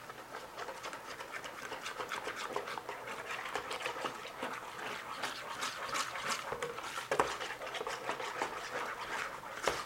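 A utensil stirring thick batter in a bowl: a steady run of quick wet scraping strokes against the bowl.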